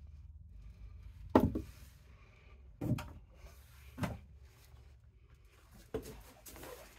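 Four hard knocks and clunks a second or two apart, the loudest about a second in: handling bumps from hands and the phone knocking against a porcelain toilet.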